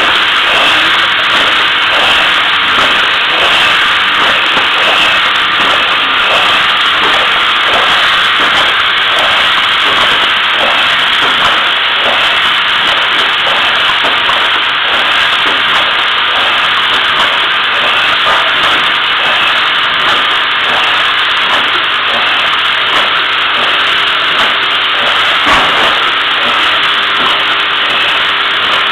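Sticker labeling machine running: a loud, steady hiss with faint regular knocks about twice a second, and one sharper knock near the end.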